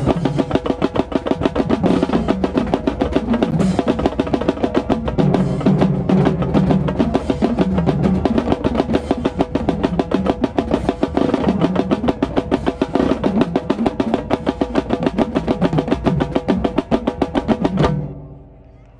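Marching band playing, heard from inside the drumline: a dense stream of rapid snare drum strokes over bass drums and the band's held chords. The music stops abruptly about 18 seconds in.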